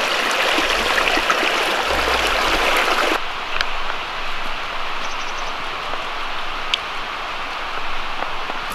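Small mountain creek running over rocks, a steady rush of water; about three seconds in it drops to a softer, duller rush.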